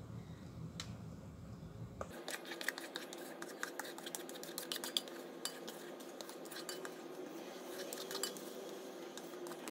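A utensil scraping and clinking against a metal mixing bowl as thick pandan sponge batter is emptied from it into a lined baking tin: many small scrapes and light clicks, thicker from about two seconds in.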